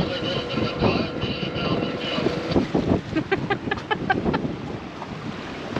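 Gusty wind on an anchored sailboat, buffeting the microphone. A steady thin whistling tone runs through the first couple of seconds, and faint voices come in a little past halfway.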